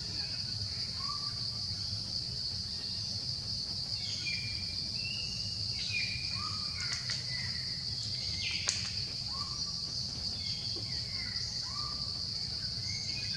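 Steady high-pitched insect drone with short chirping calls scattered through it and a few sharp clicks in the middle.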